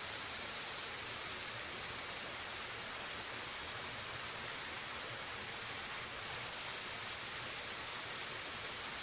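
Steady high hiss of forest ambience picked up by a trail camera's microphone, with no distinct animal call. A slightly lower, buzz-like band in the hiss drops out about two and a half seconds in.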